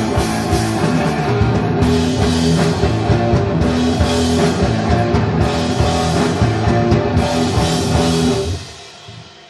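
Desert rock band playing live, electric guitars over a drum kit, loud and full. About eight and a half seconds in, the music stops and a faint ringing tail remains.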